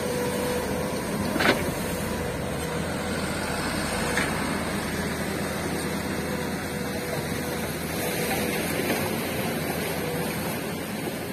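Mitsubishi Canter dump truck's diesel engine running steadily as the truck drives off over rough, muddy ground, with a sharp knock about a second and a half in and a fainter one about four seconds in.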